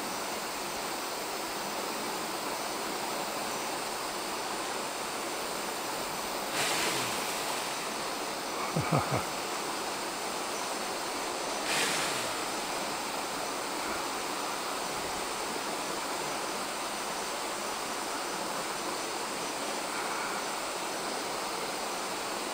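Steady rushing noise of the rainforest outdoors. Two brief swishes come about six and a half and twelve seconds in, and a short cluster of knocks about nine seconds in.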